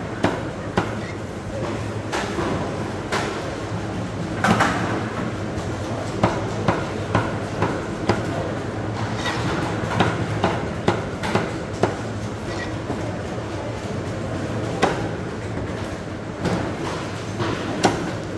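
A knife or cleaver knocking sharply and irregularly on a cutting board while a stingray is cut up, over a steady low hum.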